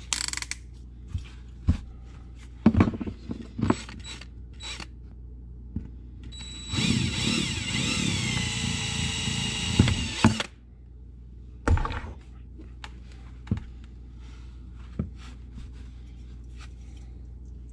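Cordless drill running for nearly four seconds, boring a small hole in a cracked carburetor float to let out the fuel that has leaked inside it; its motor whine wavers slightly under load. Before and after come scattered clicks and knocks of tools and parts being handled on the workbench.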